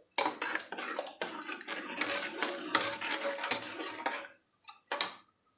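A steel ladle stirring thin milky payasam in an aluminium pot: the liquid sloshes while the ladle scrapes and clicks against the pot, stopping about four seconds in, followed by a single sharp clink near the end.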